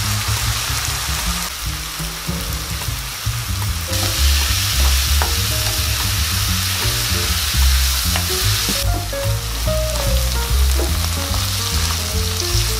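Food sizzling as it fries in oil in a pan, with stirring; the sizzle jumps abruptly in level a few times.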